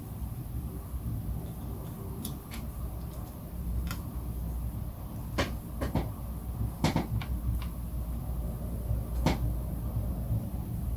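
Scattered sharp clicks and knocks, about nine of them, from tools and parts being handled on a workbench, over a steady low hum.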